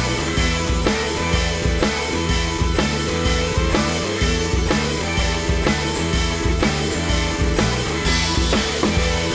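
Background music with a steady drum beat and guitar, a rock-style track.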